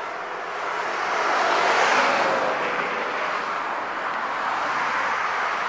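A car passing close by on the road, its tyre and road noise swelling to a peak about two seconds in and easing off, followed by steady traffic hiss.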